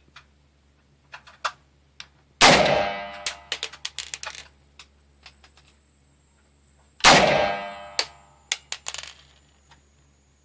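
Two AR-15 rifle shots about four and a half seconds apart, each a sharp loud crack with a ringing tail, followed by a clatter of light metallic clicks. A few faint clicks come before the first shot.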